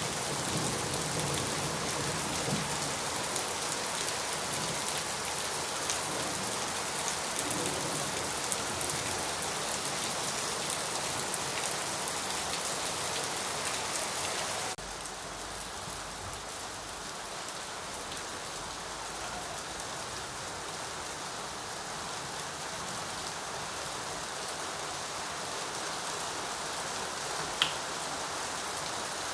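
Steady rain falling. About halfway through it switches abruptly to a softer rain with a low rumble underneath, and near the end there is a single sharp click.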